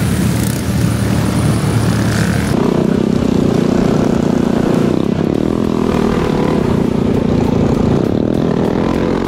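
Minibike engines running as several minibikes ride past on a dirt track. About two and a half seconds in, the sound switches to one minibike engine heard close up from the rider's helmet, running hard with its pitch wavering slightly as the throttle changes.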